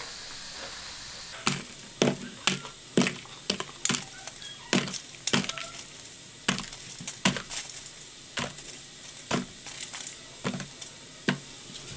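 Crispy battered fried tofu pieces dropped one after another into a paper takeaway box, making a string of short, sharp taps, roughly two a second, starting about a second and a half in.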